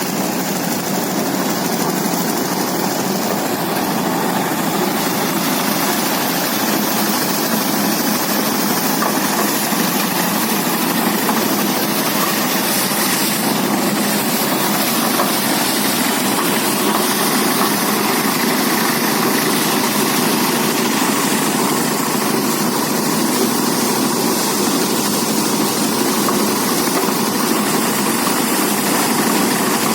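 Engine-driven rice threshing machine running steadily, a loud, even mechanical noise without let-up.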